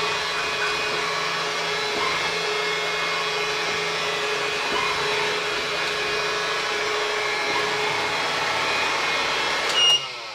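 CyberBay robotic vacuum cleaner running with a steady motor hum and whine. Near the end a short beep sounds and the motor cuts off.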